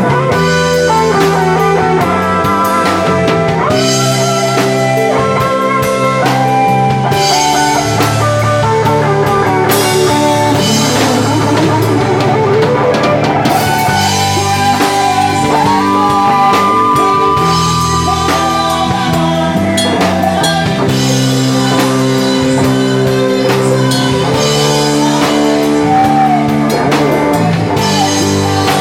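A band playing a rock ballad: guitar over drum kit and bass, with a gliding lead melody line in the middle.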